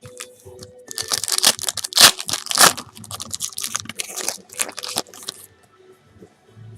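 A trading-card pack wrapper being torn open and crinkled. A quick run of rips and crinkles starts about a second in and lasts about four seconds.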